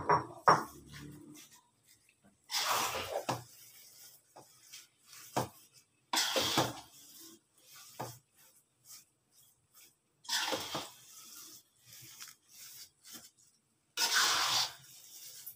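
Metal spoon stirring thick, sticky rice in a wok: two sharp clinks at the start, then four short scraping strokes about four seconds apart.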